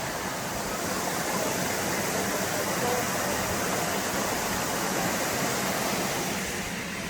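Small waterfall rushing: a steady hiss of falling water that eases a little near the end.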